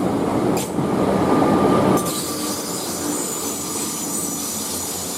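A train passing on the line, its wheels running loudly over the rails until about two seconds in, then quieter with a thin high-pitched ringing from the rails and wheels as it moves on.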